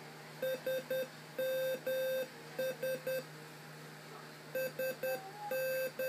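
Arduino-driven buzzer beeping the Morse code for "SMS": three short beeps, two long, three short, then after a pause of about a second and a half the pattern starts again. It is a steady mid-pitched beep.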